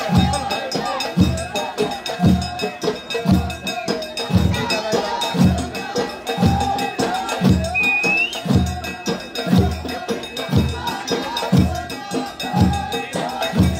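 Ahwach, Amazigh (Berber) group music: large frame drums struck in a steady beat of about one stroke a second, with a chorus singing a wavering line over the drums.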